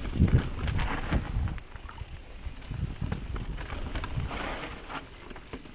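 Mountain bike rolling fast down rocky dirt singletrack: a steady rumble of tyres on dirt with heavy thumps over bumps, loudest in the first second and a half, and sharp rattling clicks from the bike throughout, with wind buffeting the microphone.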